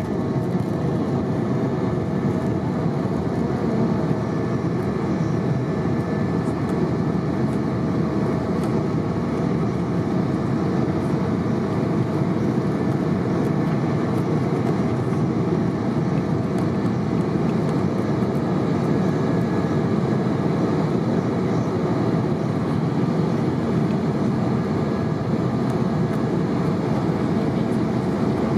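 Steady engine and airflow noise of an Airbus A320 heard inside the passenger cabin, with a few faint steady tones and no change in level.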